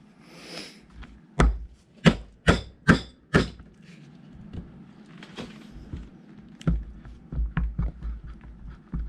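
Rebuilt hydraulic pump being knocked and forced against the Farmall 460's pump housing as it is worked onto its splined shaft: five sharp knocks in quick succession about a second and a half in, then lighter knocks and clunks. The tight locating nubs and splines are resisting seating.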